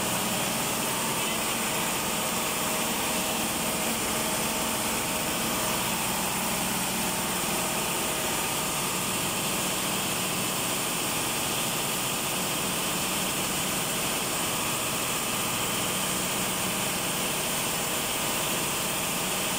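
Steady, unchanging din of running diesel engine machinery in an engine room, with a faint hum under a wide even noise.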